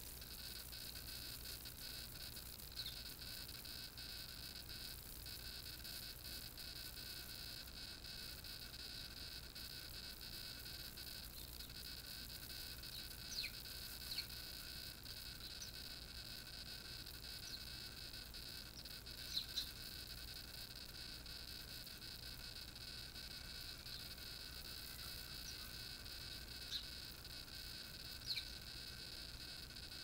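Steady high-pitched whine with a low hum under it, broken by a handful of short high chirps from small garden birds at a bird table.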